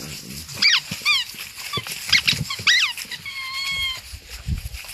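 Pit bull puppies yelping in rough play: a few short, sharp high yips sweeping steeply in pitch, then one steady high-pitched whine of about a second.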